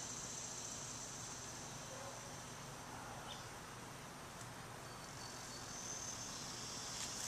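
Faint, steady, high-pitched chirring of insects in an outdoor evening chorus.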